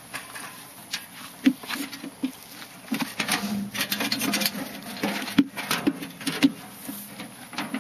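A sheep shuffling through a wire-panel handling chute: irregular knocks and rattles of hooves and metal panels, with wool rubbing against the mesh.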